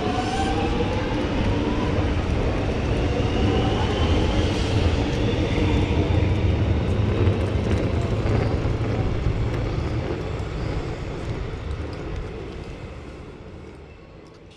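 Electric suburban train accelerating away from the platform, the whine of its traction motors rising in pitch over a heavy low rumble of wheels on rail. It fades steadily over the last few seconds as the train draws away.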